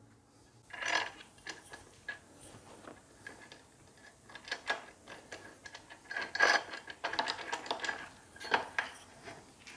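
Irregular metallic clicks and scrapes of bolts, washers and a hex key as a steel rear luggage rack is bolted onto a motorcycle by hand, loudest about six and a half seconds in.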